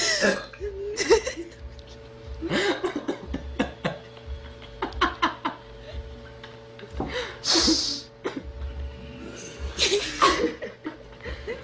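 A girl laughing and coughing in short separate outbursts, with a faint steady hum underneath.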